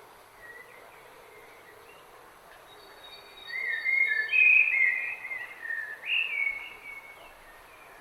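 A songbird singing one warbling phrase of rising and falling notes, lasting about three and a half seconds and starting just before the middle, over a steady faint background hiss.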